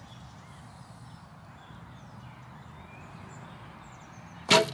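Faint birdsong over quiet outdoor background, then near the end a recurve bow is shot: one sharp, loud release of the string.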